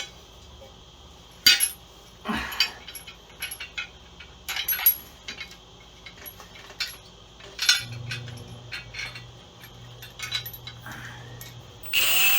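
Loose metal parts and bolts clinking and knocking as a bracket is fitted to the engine, with a few sharp clanks. Near the end a cordless power tool starts running loudly.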